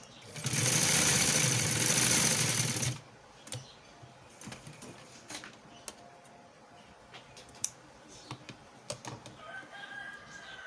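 Black sewing machine running fast for about two and a half seconds as it stitches along a lace edge, then stopping, followed by small clicks and taps of the cloth being handled. Near the end a chicken calls.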